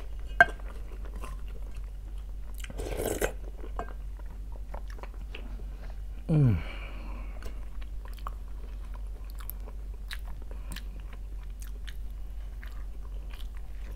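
Close-up mouth sounds of a person eating fish soup and bread: a sip from a wooden spoon near the start, a breathy burst about three seconds in, a short hum falling in pitch about six seconds in, then soft chewing clicks.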